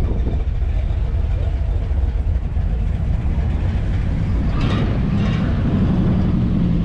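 Car engine running close by as a vehicle rolls in, a low rumble with a steady engine hum coming up near the end.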